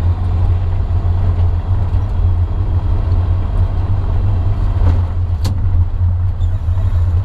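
Diesel pickup's bed-mounted exhaust stack droning steadily while driving, heard inside the cab through the open rear window: a very loud, deep drone.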